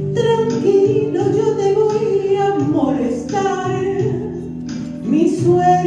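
A woman singing a Spanish-language ballad into a handheld microphone over a karaoke backing track, holding long notes in a series of phrases, with a louder phrase starting near the end.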